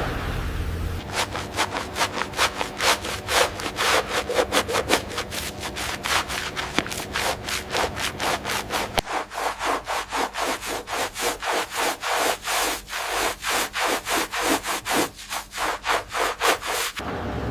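Quick, rhythmic back-and-forth hand sanding strokes on a surface, several a second, as in sanding off rust.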